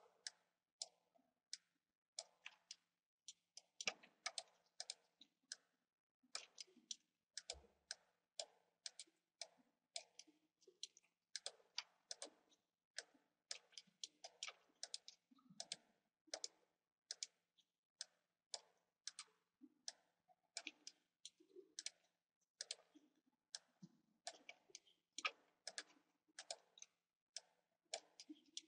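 Faint computer mouse clicks, sharp and irregular, about two to three a second.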